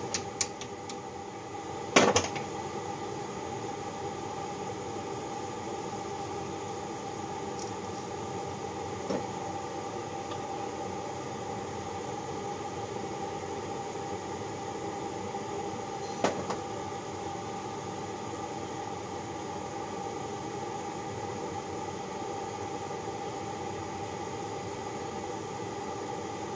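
Sharp metal clanks from the cast-iron Babbitt pouring jig being handled, one loud clank about two seconds in and a lighter one around sixteen seconds, over a steady mechanical hum.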